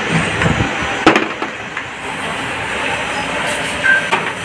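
Machine-shop noise: workshop machinery running steadily, with a sharp knock about a second in and another, smaller one near the end.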